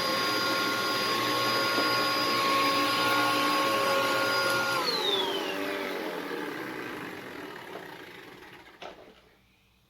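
An electric power tool motor running at a steady high whine, then switched off about five seconds in, its pitch falling as it coasts down and fades.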